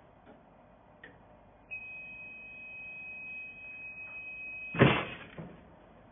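EraSmart clamshell heat press's timer alarm sounding one steady high beep for about three seconds, signalling that the pressing time is up. The beep cuts off as the press is lifted open with a loud clunk, followed by a softer knock.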